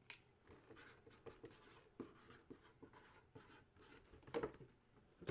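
Pen writing on paper: faint, irregular scratching strokes.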